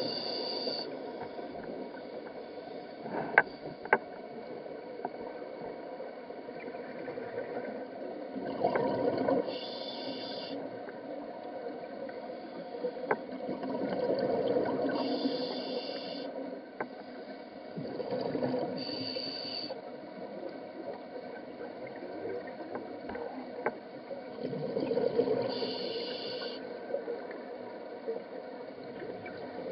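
Scuba diver breathing through a regulator, heard from inside a sealed underwater camera housing. A bubbling rush of exhaled air swells up about every five seconds, each swell with a brief high hiss. Two sharp clicks sound a few seconds in.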